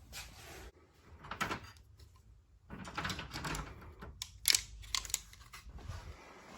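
Hand tools being handled and set down: scattered clicks, knocks and rustling, with the sharpest click about four and a half seconds in.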